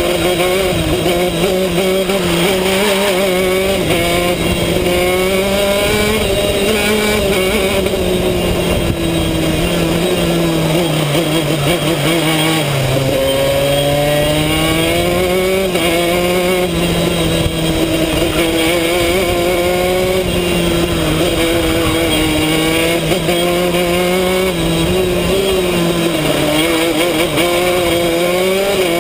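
Racing kart's two-stroke engine at full racing speed, heard from onboard: its pitch falls as the driver lifts for corners and rises as he accelerates out. About thirteen seconds in it drops deepest, then climbs steadily again.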